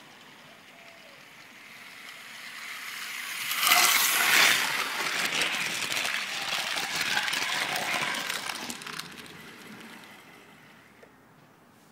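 HO-scale model train running past on its track. The wheel rattle builds over a couple of seconds, is loudest about four seconds in, then fades away by about ten seconds in.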